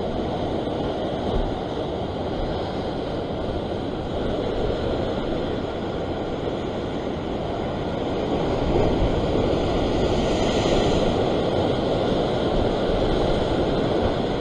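Steady rush of sea surf breaking and foaming against rocks, swelling a little about eight seconds in.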